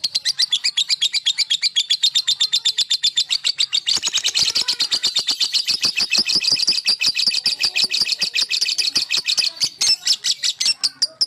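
Male lovebird chattering in one long unbroken run of rapid, sharp, high chirps, about ten a second. It grows fuller and louder about four seconds in and breaks off near the end.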